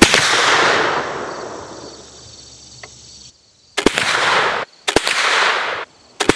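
.40 caliber flintlock muzzleloading rifle firing a single black-powder shot, a sharp report with a long echoing tail that dies away over about two seconds. Later come three loud rushing bursts of noise, each under a second long and cut off abruptly.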